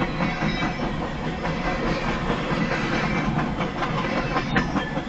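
CSX freight train's tank cars and covered hoppers rolling past: a steady rumble of steel wheels on rail, with repeated clicks and knocks as the wheels cross rail joints.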